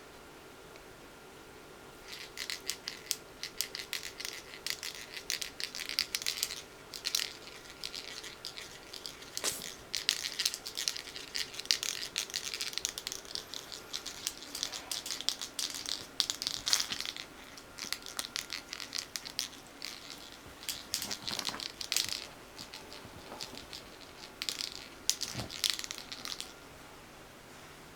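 Kitten crunching dry food: quick runs of dry crackly bites and chews, with short pauses, starting about two seconds in and stopping shortly before the end.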